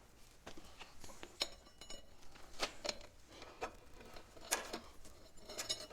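Go-kart roller drive chain clinking and rattling as it is worked around the sprocket by hand: a run of irregular light metallic clicks, some with a short ring.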